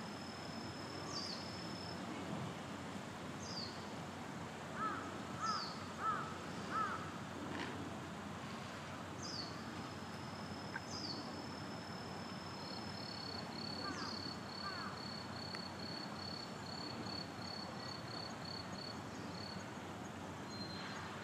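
Outdoor ambience with birds calling: short, high falling chirps every second or two, three louder calls about five to seven seconds in, and a run of quick, even high pips through the second half.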